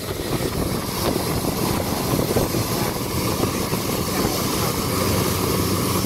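Boat engine running steadily under way, a continuous low drone with the rush of wind and water over it.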